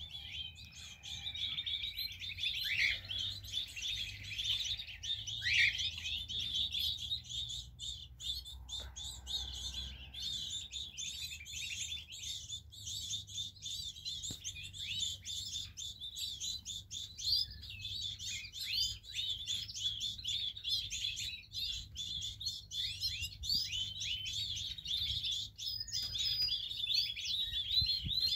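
Canaries chirping and twittering: a dense, unbroken run of quick high notes, with a few longer whistled calls in the first few seconds.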